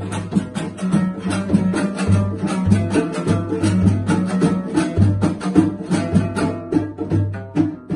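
Afghan dambura, a long-necked two-string lute, strummed fast over a goblet drum (zerbaghali) played with the hands: an instrumental passage of Afghan folk music, with a quick, even pulse of strokes over a steady low drone.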